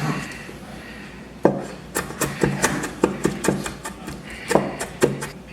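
Kitchen knife cutting ginger on a cutting board: a quiet start, then a run of irregular sharp knocks from about a second and a half in, each cut landing on the board.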